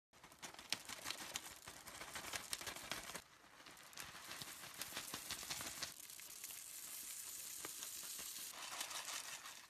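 Slime being squeezed and stretched, with a dense wet crackling and popping. The texture changes abruptly about three seconds in and again near the end, and the sound cuts off sharply at the close.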